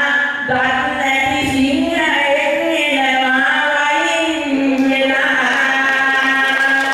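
A woman singing a Sinhala kavi verse solo into a microphone, in long held notes that glide from pitch to pitch; the verse ends near the end.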